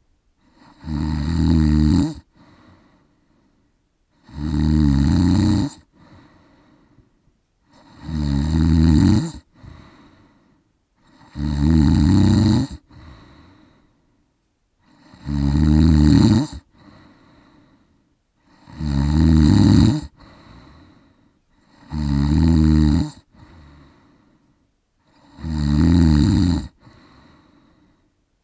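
A man snoring in his sleep: eight loud snores at an even pace, about one every three and a half seconds, each followed by a much softer breath.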